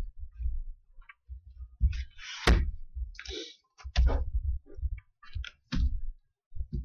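Irregular knocks, thumps and clicks on a wooden conference table as papers are set down and a chair is pulled up. Two sharper knocks stand out, about two and a half and four seconds in.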